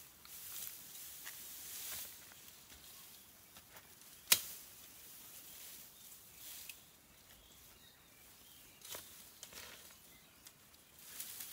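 Faint rustling with scattered small clicks, and one sharp click or snap about four seconds in. A few soft swishes follow near the end.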